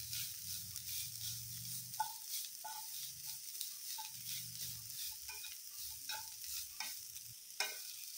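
Grated bottle gourd sizzling softly in ghee in a nonstick kadhai on low heat, stirred with a plastic slotted spatula that scrapes and taps against the pan.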